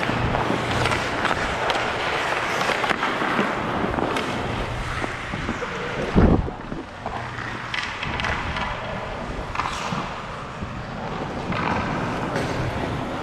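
Ice-hockey skate blades scraping and gliding on rink ice, with scattered sharp clacks and one heavy thud about six seconds in.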